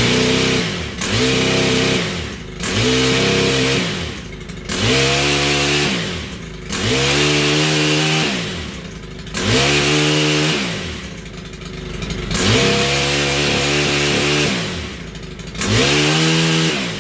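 Stihl HT101 pole saw's 4-MIX engine being revved up and let back down to idle about seven times, each rev climbing, holding for a second or so, then dropping. It is running on a freshly installed carburetor that is being set.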